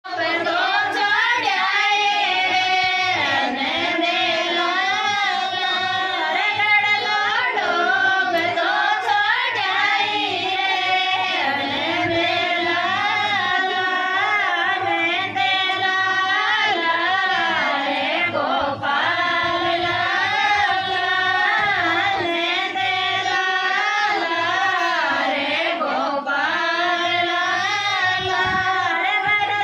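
Women singing a Rajasthani devotional bhajan to Krishna into microphones, the melody continuous and wavering with ornamented notes.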